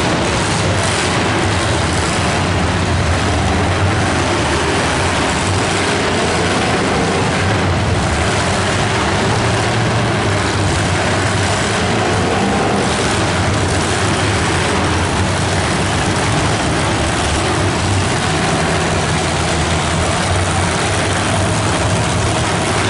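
Many demolition derby cars' engines running and revving together, a loud, continuous din that stays steady without distinct crashes.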